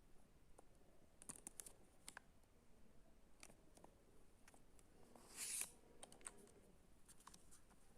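Faint handling noises: scattered small clicks and taps, with one brief louder rustle about five and a half seconds in.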